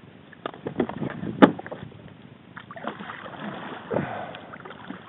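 Hard knocks and clatter on a plastic sit-on-top kayak's hull as its angler shifts gear and gets moving, with the sharpest knock about a second and a half in, followed by a soft wash of water and hull noise.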